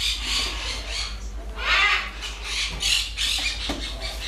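Baby Timneh African grey parrot making short raspy, breathy noises, about two a second, while her head and neck feathers are scratched; the loudest comes just before two seconds in.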